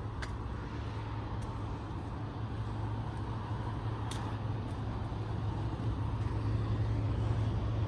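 Semi truck engine running steadily: a low, even hum that grows slightly louder toward the end, with a few faint ticks.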